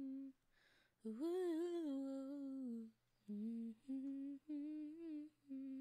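A young male voice humming a tune with closed lips: one long phrase, then a string of short notes.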